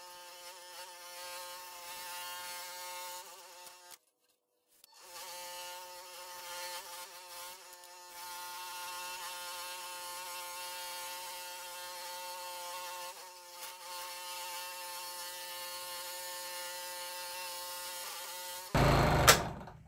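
Scroll saw running steadily, its #5 reverse-tooth blade cutting half-inch MDF: an even, buzzing hum of several tones. The hum drops out for about a second some four seconds in, and stops near the end with a short, loud bump.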